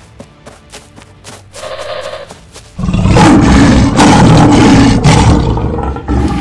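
Cartoon lion roar sound effect: one loud, long roar that starts about three seconds in and lasts about three seconds.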